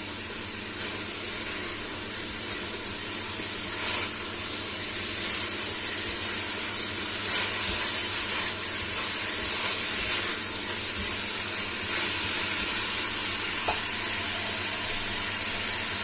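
Green beans, mushrooms and smoked beef sizzling steadily as they are stir-fried in a pan with oyster sauce. A few brief scrapes of the stirring come through, and the sizzle grows a little louder as it goes.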